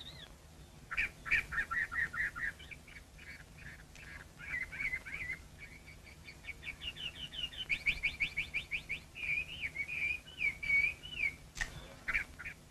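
A small songbird singing: bursts of quick chirps, then a fast run of repeated notes, then warbled, looping phrases.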